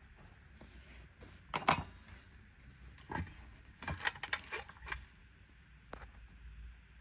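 A few sharp metal clinks and knocks from small metal parts being handled: one loud knock about two seconds in, another a second later, a quick cluster of clinks around the middle and a last one near the end, over a low steady hum.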